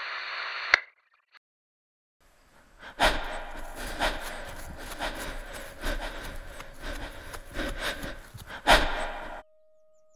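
Footsteps crunching through dry leaf litter, about one a second, over breathing; the footfall just before the end is the loudest. The sound cuts off abruptly, leaving a steady electronic tone.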